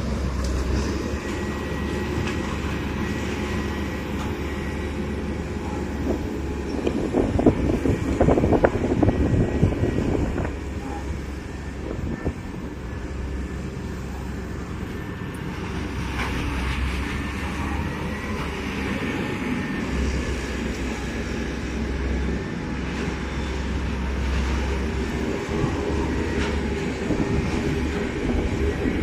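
Heavy demolition machinery's diesel engine running steadily, with a louder stretch of knocks and crashes about seven to ten seconds in as the building is torn down.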